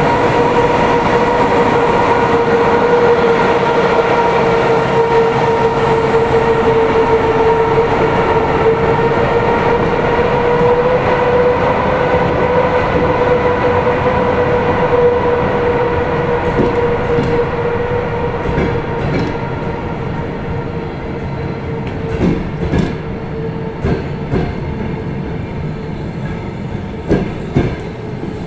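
Passenger train pulling out behind an EP2K electric locomotive: a steady whine from the departing locomotive fades over the first half while the coaches roll past, then wheel clicks over rail joints come in, more often and louder near the end.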